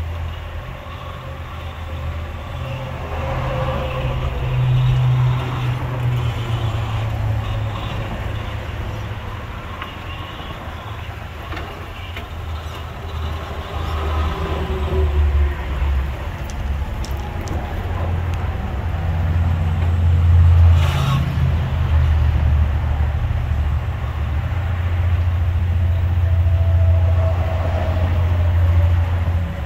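Axial SCX10 II radio-controlled rock crawler's electric motor and gear drivetrain whining faintly, the pitch rising and falling with throttle as it crawls, under a loud, uneven low rumble. There is one sharp knock about two-thirds of the way through.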